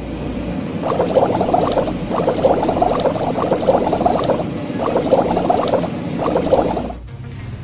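Cartoon sound effect of a rotating car-wash brush scrubbing a truck, a dense, wet, bubbly crackle that comes in several stretches with short breaks and stops shortly before the end.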